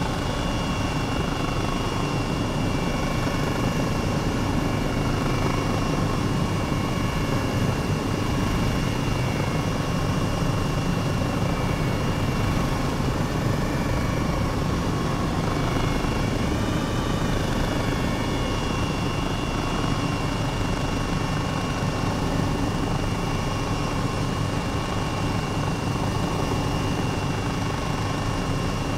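Helicopter in flight: a steady low drone with a constant high whine above it, the whine wavering in pitch briefly about halfway through.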